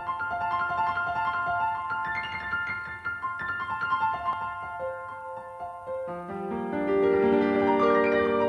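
Background piano music: a light melody of single notes, joined about six seconds in by louder, fuller chords with low bass notes.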